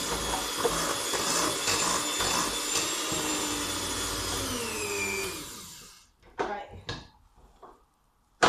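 An electric mixer's motor runs steadily, then slows with a falling whine and stops about five and a half seconds in. A few light knocks follow, and a sharp knock comes near the end.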